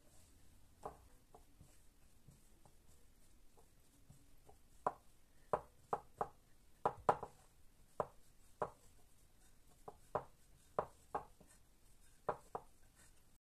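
Bagel dough being kneaded by hand in a ceramic bowl: irregular knocks as the dough is pressed and pushed against the bowl, a few faint ones at first, then coming thickly from about halfway through, one or two a second.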